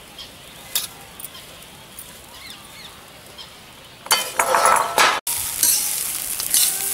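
Metal spatula stirring and scraping dry flattened rice (poha) around a kadhai of fried spices, a loud rustling scrape that starts about four seconds in after a few light clinks. It carries on more steadily toward the end.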